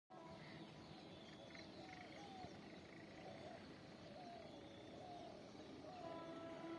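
Faint outdoor ambience with a small animal's short wavering call repeating about once a second. A faint steady tone comes in near the end.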